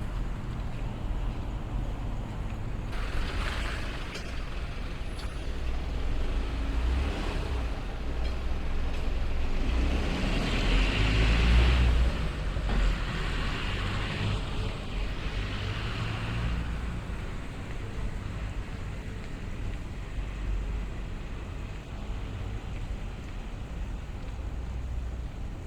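Street traffic with the deep engine rumble of a large vehicle such as a truck or bus, swelling to its loudest about ten to twelve seconds in and then easing off, with some hissing along the way.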